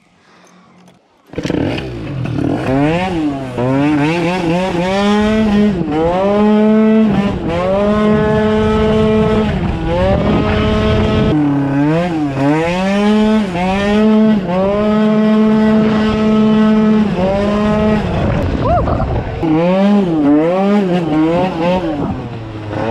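Small motorbike engine, loud, starting about a second in and revving up and dropping back again and again as the bike rides along, with stretches held at a steady pitch.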